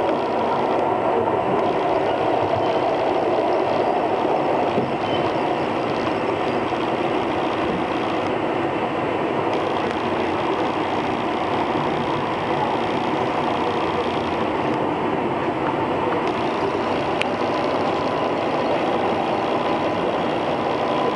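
Interior running noise of an EP2D electric multiple unit moving at speed: a steady rumble of wheels on rail and running gear, heard from inside the passenger car.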